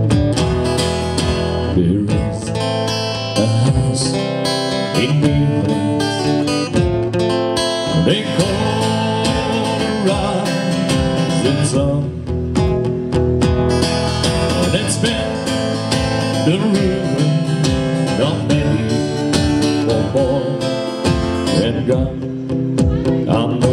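A song on acoustic guitar with a man singing, playing steadily throughout.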